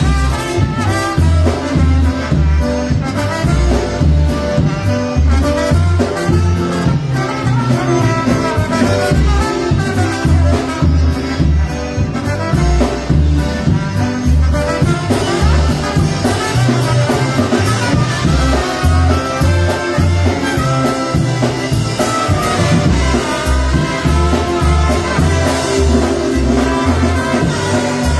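Live polka band playing an instrumental passage: trumpet and other brass over a bass line and a steady beat.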